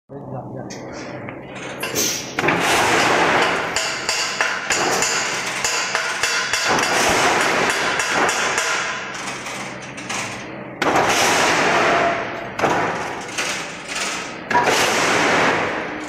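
Crimped wire mesh machine running: a dense metallic clatter of rapid knocks that comes in loud spells of two to four seconds, with short lulls between.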